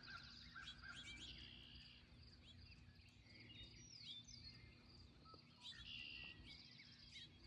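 Faint dawn chorus of several wild songbirds: overlapping trills, chirps and whistled calls, one whistle sliding down in pitch about four seconds in, over a low steady background rumble.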